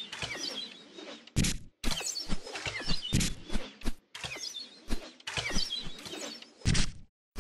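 Arrows striking archery targets and the ground, several sharp thuds at irregular intervals, with birds chirping between the hits.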